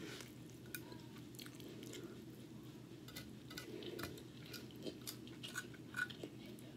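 Soft chewing of baked salmon and white rice, with scattered small sharp clicks throughout.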